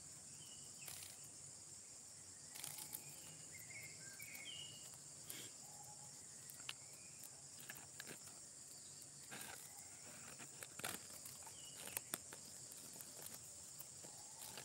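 Faint steady high-pitched insect chorus, crickets or similar, with a few short bird chirps and scattered faint clicks.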